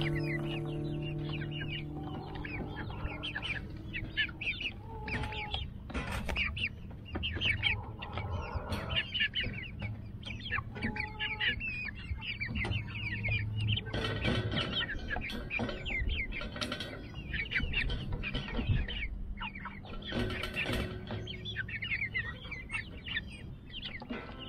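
A flock of young chickens (pullets) clucking and peeping while they feed, with scattered sharp knocks and clatter from the galvanized metal feeder trough as they peck at the pellets.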